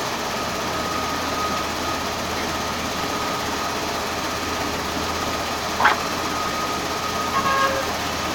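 LZZG LZ300 sand recycling machine and bucket-wheel sand washer running together: a steady mechanical din with a faint steady whine. A brief sharp clank sounds about six seconds in.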